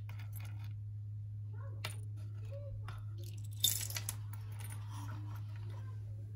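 Small costume-jewelry pieces and findings clicking and rattling against each other as fingers rummage through them in a wooden box, with a louder jumble of clinks about three and a half seconds in. A steady low hum sits underneath.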